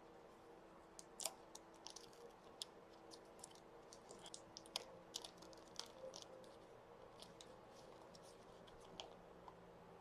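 Faint, irregular small clicks and crackles of adhesive being peeled off a phone's LCD panel, over a low steady hum.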